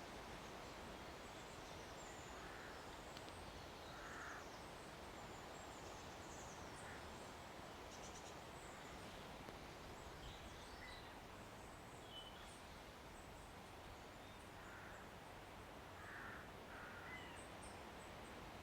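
Faint outdoor quiet: a steady low hiss with scattered short bird chirps, and a few brief lower calls around 2.5 s, 4 s and near the end.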